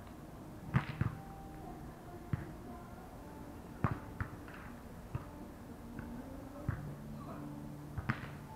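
Volleyball being struck back and forth in a beach volleyball rally: sharp slaps of hands and forearms on the ball, about eight hits at irregular intervals of one to one and a half seconds.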